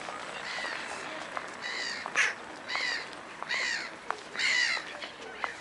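Gulls calling: a string of short, harsh cries about once a second.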